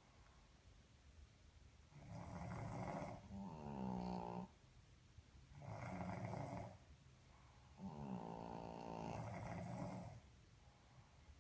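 A Boston terrier and a man snoring in slow cycles about every four seconds. Each cycle is a rough, noisy snore followed by a pitched, buzzing one, and this happens twice.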